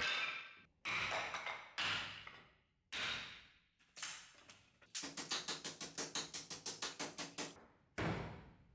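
Machete blade chopping through wooden sticks onto a wooden chopping stump. Four single chops come about a second apart, then a rapid run of about twenty quick strikes, then one last chop.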